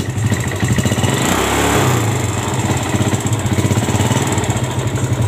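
Yamaha Vega ZR's small four-stroke single-cylinder engine idling with a rough, knocking noise from the front of the engine; the note briefly rises about a second in. The mechanic suspects a piston that has grown too loose, or a camshaft with play at its right-hand end, which runs without a bearing.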